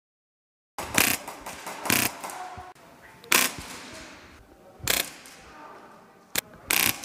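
Airsoft electric rifle firing short bursts, about six of them spread over several seconds, each a quick mechanical rattle of the gearbox cycling.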